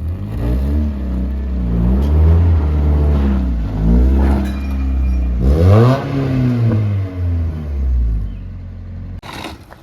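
Car engine idling and revved in four or five short blips, each rising and falling back, as the low car is eased up a set of ramps under load. The engine sound drops away suddenly near the end.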